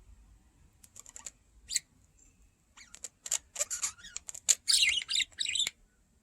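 Budgerigars chirping and chattering in short, sharp bursts mixed with quick clicks, sparse at first and densest and loudest in the last second and a half.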